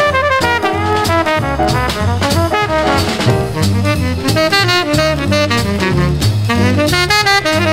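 Hard-bop jazz quintet recording played back from a vinyl LP on a turntable hi-fi: trumpet and tenor saxophone lines over a walking bass and drums with cymbal strokes.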